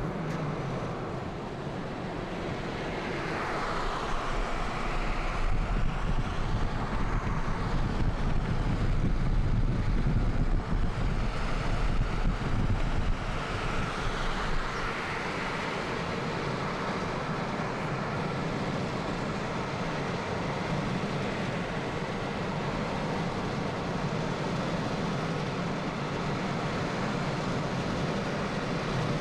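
Road noise inside a moving car: a steady rumble of tyres and wind. It grows louder and rougher from about three seconds in, then settles to a lower, even level after about thirteen seconds.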